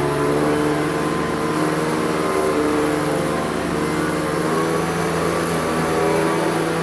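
Hoover Decade 800 upright vacuum cleaner running steadily, its motor and original brush roll spinning as it cleans.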